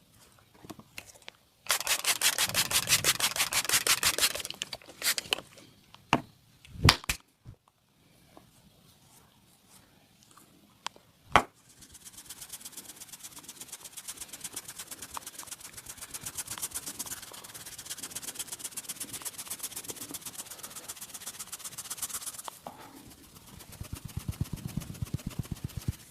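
Hands massaging a person's upper body: fast, even rhythmic patting and rubbing on skin and clothing, broken by a few sharp single snaps about a third of the way through, then a long run of quick strokes and a duller patting near the end.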